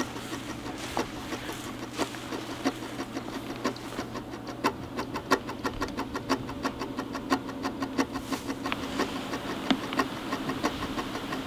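Footsteps through tall dry grass, with irregular crunches and swishes about once or twice a second.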